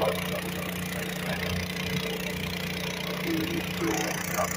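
John Deere garden tractor engine running steadily under heavy load as it drags a weight-transfer pulling sled.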